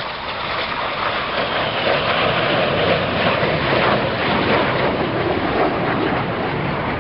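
BAE Hawk T1 display jets flying past with their turbofans running, a loud, steady rushing jet noise that builds during the first second or so.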